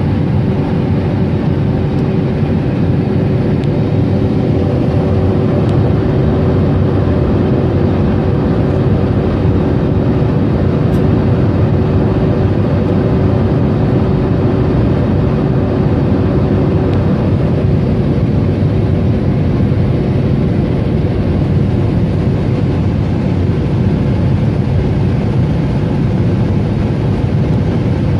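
Steady jet cabin noise inside an Airbus A321neo during descent, heard from a window seat over the wing: the engines and rushing air make an even roar, with a faint steady tone that fades out about two-thirds of the way through.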